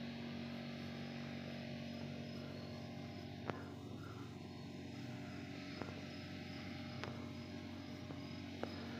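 Quiet suburban outdoor ambience: a steady low hum under faint high-pitched insect chirping, with a few tiny clicks.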